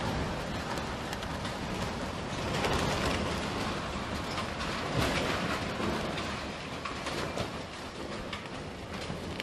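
Storm-force wind blowing hard in gusts, swelling about three and five seconds in, with a few knocks and clatters of loose debris.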